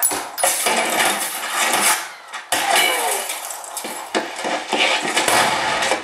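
Action-film gunfight soundtrack played back through home surround-sound speakers: an irregular string of sharp shots and impacts with metallic clatter and debris.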